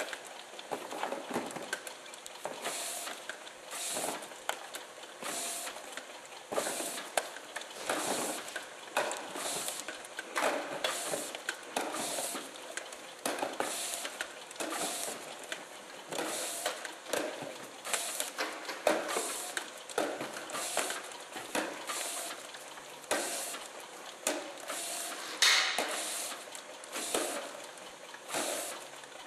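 Automatic front-and-back bottle labeling machine running, with a rushing, clattering mechanical noise that repeats unevenly about once or twice a second.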